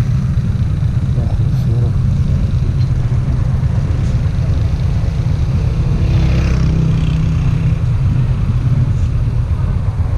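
Motorcycle engine idling at a standstill: a steady low rumble. Around the middle, a vehicle passes and voices are heard briefly.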